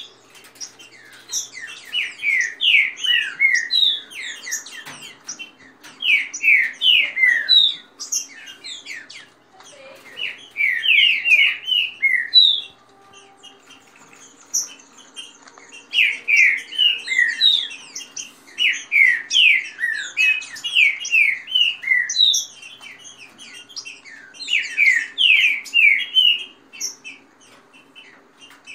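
Caged green-winged saltators (trinca-ferro) singing: loud bouts of quick, downslurred whistled notes, each bout lasting one to two seconds, repeated after short pauses.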